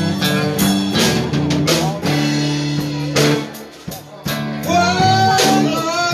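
A live blues band playing, with guitars over a drum kit. The drums strike at a steady beat, and about five seconds in a note bends in pitch.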